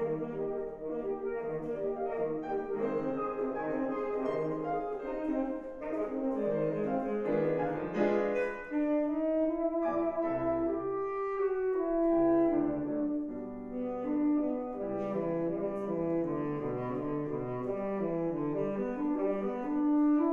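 Tenor saxophone playing a classical melody with long held notes, accompanied by piano.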